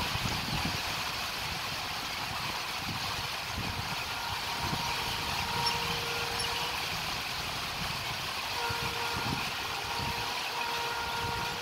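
Steady outdoor background noise with irregular low rumbles, and faint hum tones that come and go every second or two.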